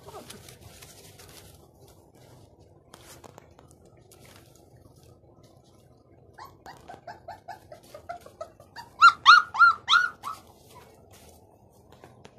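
Young Gultair puppies whimpering: a string of quick short whines past the middle, then four loud, high yelps close together.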